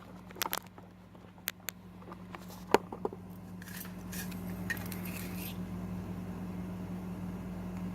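Small metal clicks and clinks of a padlock and its shim being handled, the loudest about three seconds in, followed by a short scraping rasp, over a steady low hum.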